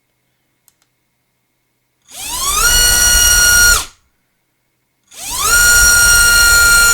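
ZMX Fusion X25 2206 2300 kV brushless motor spinning a Racecraft 5045 tri-prop on a thrust stand, run up twice. Each time a high whine rises quickly to a steady pitch, holds for about a second and a half, then cuts off sharply.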